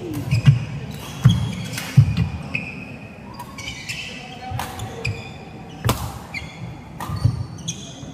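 Badminton rally on a wooden court. Rackets strike the shuttlecock with sharp cracks, one every one to two seconds. Shoes squeak briefly on the floor and feet thud as the players lunge and land.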